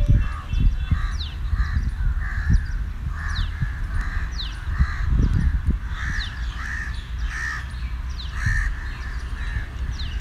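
Birds calling: a steady run of harsh caw-like calls about twice a second, with quick high falling chirps over them and low thumps underneath.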